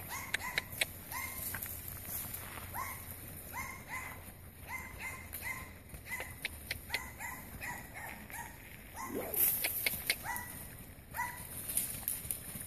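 Dog yipping over and over in short, high, rising yips, several in quick runs with brief pauses between.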